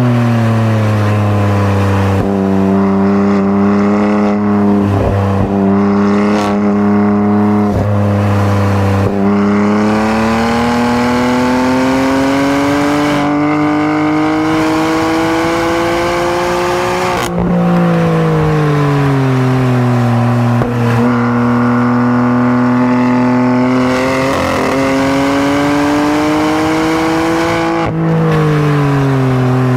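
BMW M3's twin-turbo inline-six engine and exhaust under hard driving on a track. The engine pitch holds fairly steady, then climbs for about seven seconds as it revs up. About halfway through it drops suddenly and keeps falling, then rises gently and drops sharply again near the end.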